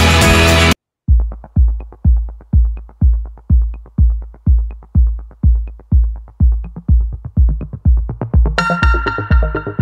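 Background music: a loud full track cuts off under a second in, then after a brief gap a steady electronic kick-drum beat of about two hits a second, with a synthesizer melody joining near the end.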